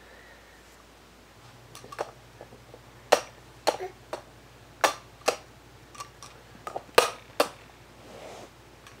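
A string of about ten sharp, irregular clicks, some of them loud and a few with a short ring.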